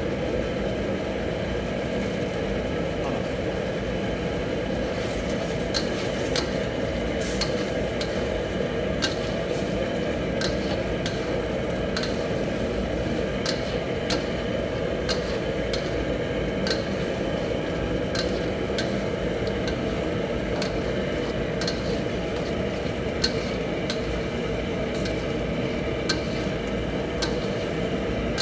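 Metal spatula stirring a simmering chicken curry in a steel wok, with sharp knocks and scrapes against the pan about once a second from about five seconds in. Under it runs a steady kitchen roar with a hum.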